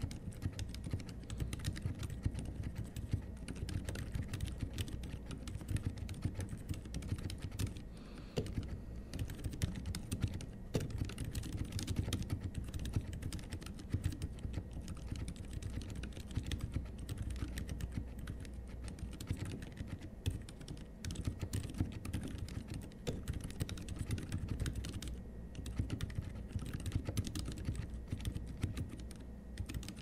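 Steady touch-typing on a gasket-mounted Cheap60 60% mechanical keyboard fitted with Outemu Silent White linear switches, the key presses quiet and low-pitched. The switches have silencing pads on the top and bottom of the stems, and the large stabilizers are not lubed.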